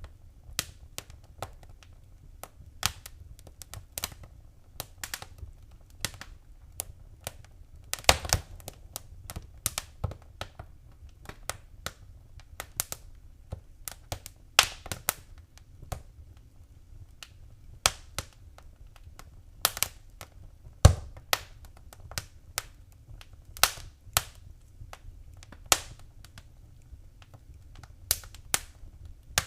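Fireplace fire crackling: irregular sharp pops and snaps, a few each second, over a faint low rumble, with one louder pop about two-thirds of the way through.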